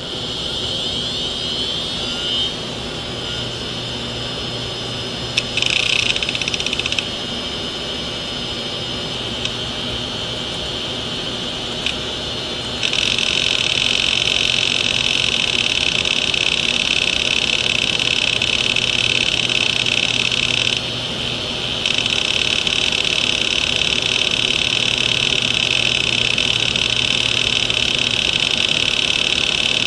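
Open hard disk drive powering up: the spindle motor's whine rises in pitch over the first two seconds, then holds steady. About halfway through, a much louder, dense high buzz sets in as the read/write head arm swings across the platter, dropping out briefly about two-thirds of the way through, over a low steady hum.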